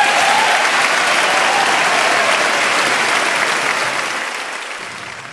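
A large crowd applauding at the close of a speech, a dense, steady clapping that fades off over the last second or so.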